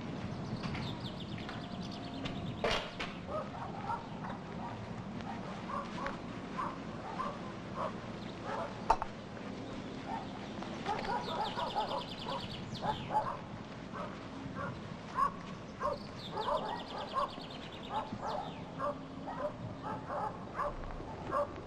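Outdoor rural ambience: a songbird sings a fast high trill three times, among many short scattered calls from other birds and animals.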